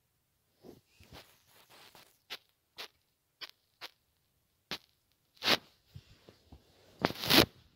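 Handling noise: a run of short sharp clicks and rustles about half a second apart, building into loud scraping rustles near the end as the phone is moved and rubbed.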